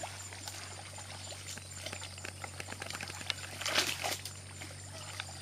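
Wet mud and shallow water sloshing as a person moves and gropes by hand in a muddy pool, with scattered small clicks and a louder splashy rush about four seconds in. A steady low hum runs underneath.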